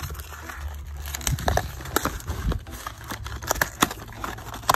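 Thin cardboard retail box being torn open by hand: a run of irregular, sharp tearing and crinkling sounds.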